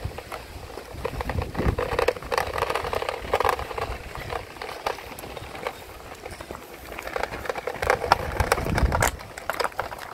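A child's plastic kick scooter rattling and clicking as its small wheels roll over rough asphalt, with gusts of wind rumbling on the microphone.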